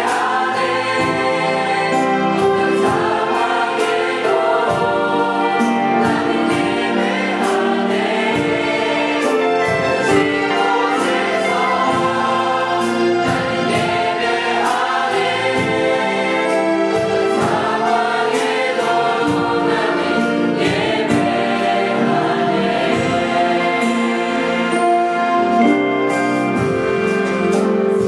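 Mixed choir of men and women singing a worship song, backed by a band of keyboards, electric guitar and drums keeping a steady beat.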